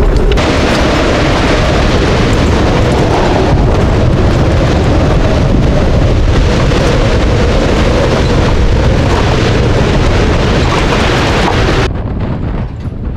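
Strong storm wind of about 24 knots buffeting the microphone on a sailboat's deck: a loud, steady rush with a heavy low rumble. It cuts off suddenly near the end.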